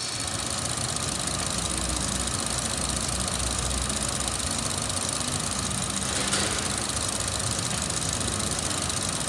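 Holden Cruze 1.4-litre Ecotec four-cylinder petrol engine idling steadily, heard close up in the open engine bay.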